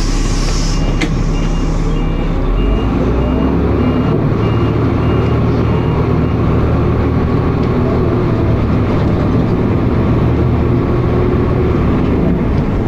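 Dennis Arrow bus engine and drivetrain heard from on board, the engine note growing fuller about three and a half seconds in. A thin electronic beep repeats about twice a second over the first few seconds, with a hiss of air near the start.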